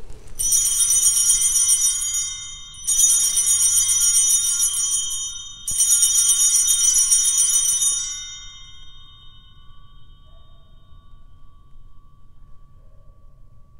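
Altar (Sanctus) bells shaken three times, each ring a jingling peal of several bright tones about two and a half seconds long, with the last one dying away over a few seconds. They are rung at the elevation of the newly consecrated host.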